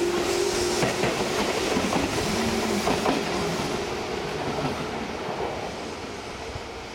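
Tobu 8000-series electric commuter train pulling out past the camera: wheels clicking over rail joints, with a steady hum in the first second. The sound fades steadily as the rear car moves away.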